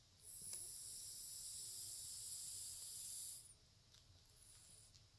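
Sleeping cat whistling through its nose: one long, high, hissing whistle on a breath, stopping about three and a half seconds in, followed by faint breathing.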